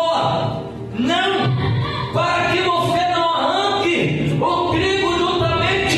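Congregation singing a gospel hymn in short sung phrases.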